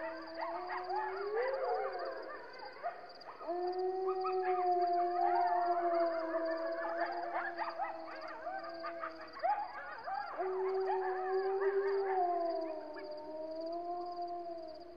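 Canine howling: long wavering howls held for several seconds, with two short breaks, and shorter, higher wavering calls overlapping them.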